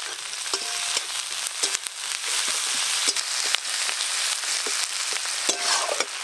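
Sliced onions sizzling in hot mustard oil in a metal kadai, with a flat metal spatula scraping and clicking against the pan as they are stirred.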